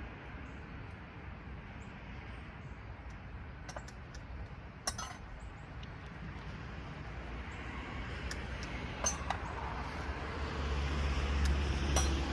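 Small scrap brass socket parts clinking: a few scattered sharp metal clicks as they are snipped, handled and dropped. A low rumble builds near the end.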